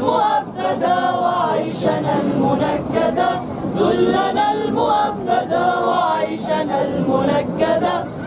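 A group of voices singing together without accompaniment.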